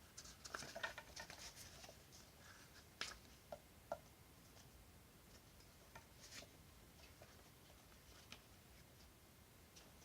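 Faint handling sounds: light rustling and scattered small clicks and ticks of packaging or a disc case being handled, busiest in the first two seconds, with a few sharper ticks around three and four seconds in.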